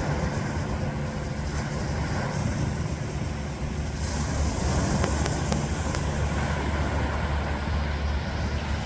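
Ocean surf washing steadily, with a heavy low rumble of wind on the microphone.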